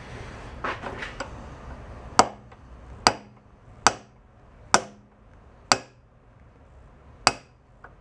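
Hammer striking a brass punch to drive a keyed shaft out of a part held in a vise: six sharp metallic taps, about one a second with a longer pause before the last, each with a brief ring. A few lighter handling knocks come about a second in.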